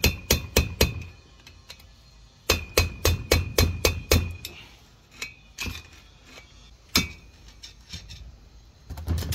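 Blunt screwdriver hammered against a steel bearing race inside a Ford Econoline brake rotor hub, driving the old race out: sharp metal-on-metal taps with a short ringing note. A quick run of taps at the start, a faster run of about eight taps around the middle, then a few single taps.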